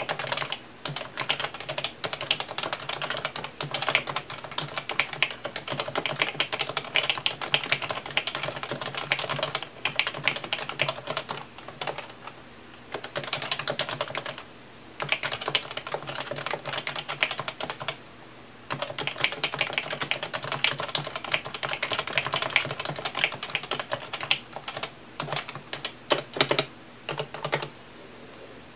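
Rapid typing on a PFU Happy Hacking Keyboard Professional 2, whose Topre electrostatic capacitive switches give a dense patter of keystrokes. The typing breaks off briefly a few times and grows sparser near the end.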